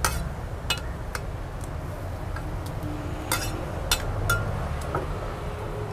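Metal ladle clinking and knocking against a large pot of noodle soup and the bowls as broth is ladled out, several sharp clinks spread unevenly over a low steady rumble.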